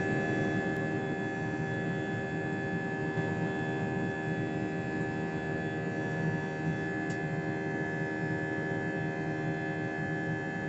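Jet airliner's engines heard inside the passenger cabin during the climb after takeoff: a steady noise with many steady whining tones layered over it, unchanging throughout.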